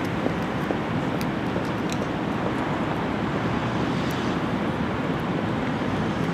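Steady outdoor rushing noise with no clear single source, with a few faint ticks about a second and two seconds in.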